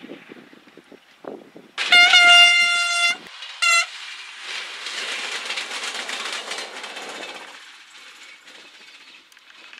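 Siemens Desiro diesel railcar sounding its horn: one long blast on a single steady note, then a short second blast. The rush of the railcar passing close follows and fades away.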